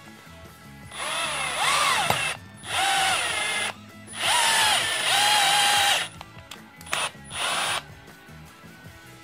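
Cordless drill driving a Tapcon concrete screw into a concrete block in five short bursts, the motor whine rising in pitch as it spins up each time; the last two bursts are brief.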